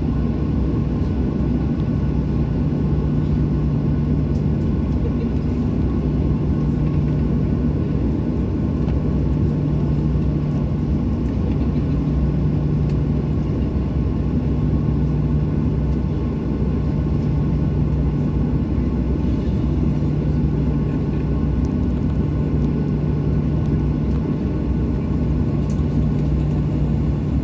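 Steady cabin noise of a Boeing 737-800 in flight: the low, even rumble of its CFM56-7B engines and rushing air, with a constant low hum running underneath.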